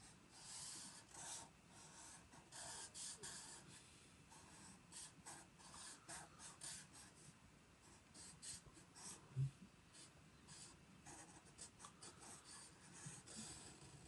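Black felt-tip marker drawn across sketchbook paper in many short, faint strokes as block letters are outlined in one continuous line. One brief low sound stands out about nine and a half seconds in.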